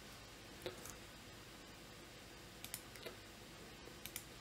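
A few faint computer mouse clicks over quiet room tone.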